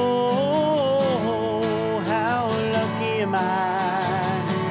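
A man singing long, drawn-out notes in a slow song, accompanied by two acoustic guitars strumming steadily.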